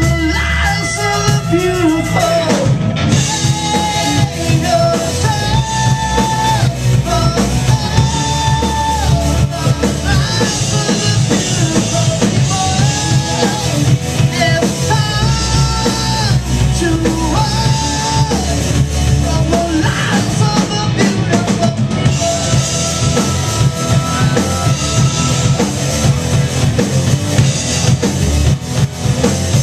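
A rock band playing live: drum kit, electric guitars and a lead singer's vocals, loud and without a break, with held notes that step from pitch to pitch over a steady drum beat.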